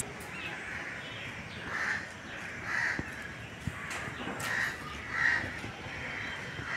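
Crows cawing, a series of short caws about a second apart.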